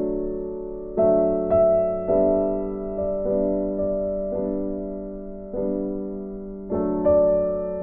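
Piano music: slow notes and chords struck about once a second, each left to ring and fade.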